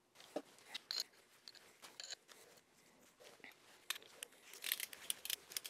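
Irregular clicks, clatter and rustling of tools and metal engine parts being handled.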